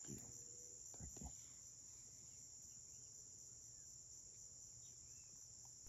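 Faint, steady high-pitched insect chorus, with two soft knocks about a second in.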